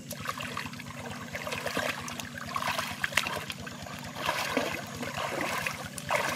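Muddy water splashing and sloshing in bursts as hands grope through a shallow flooded field for fish, with small clicks and knocks. It grows louder near the end, over a steady low hum.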